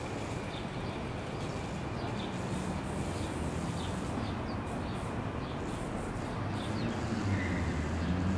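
Ambient electronic texture: a steady low rumble and hiss, with faint short high chirps scattered through it. A low hum swells louder near the end.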